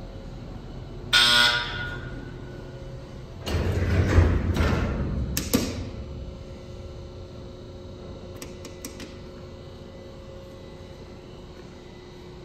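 Freight elevator car at a landing: a single chime-like tone rings about a second in and fades within a second. A couple of seconds later comes a loud rumbling clatter of the elevator's doors moving, lasting about two and a half seconds and ending in a knock, over a steady machine hum. A few faint clicks follow near the middle.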